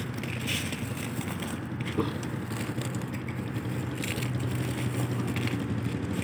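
Biscuits being crumbled by hand on a paper plate: scattered dry crunching and crackling, with one sharp click about two seconds in. Under it runs the steady low hum of an engine.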